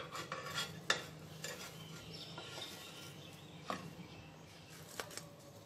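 A spatula scraping and clicking against a flat dosa pan as a topped bread toast is slid up and lifted off, with a few sharp clicks over a faint sizzle of butter frying.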